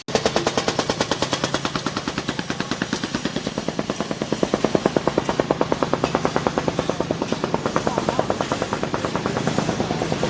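A construction power tool hammering rapidly and steadily, about ten blows a second.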